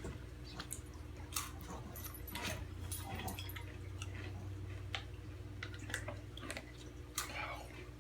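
Irregular crunching and clicking of someone chewing Takis rolled tortilla chips, over a steady low hum.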